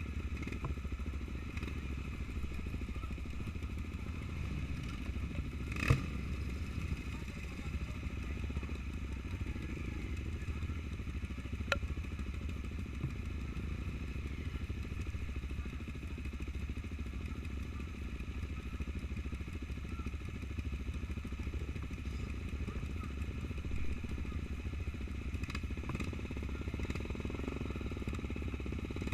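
Trail motorcycle engine running steadily while riding off-road, with a sharp knock about six seconds in and a smaller click near the middle.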